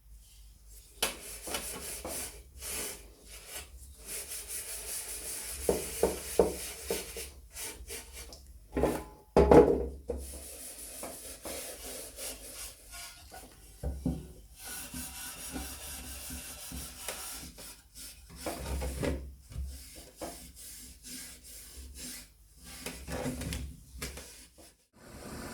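Hand rubbing and scraping on a workpiece in uneven strokes with short pauses, with a sharper knock about nine seconds in.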